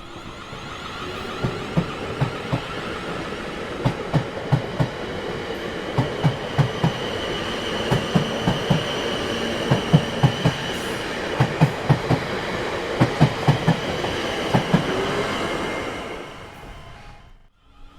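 A train rolling past, its wheels clacking over rail joints in quick groups of two to four, over a steady rumble with a high whine. The sound fades away about sixteen seconds in.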